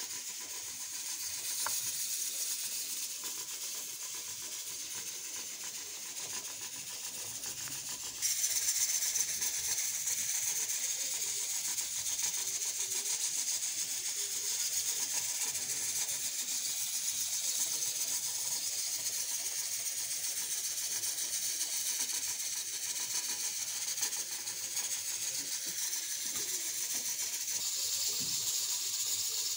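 A steady high-pitched hiss that steps up in loudness about eight seconds in and then holds.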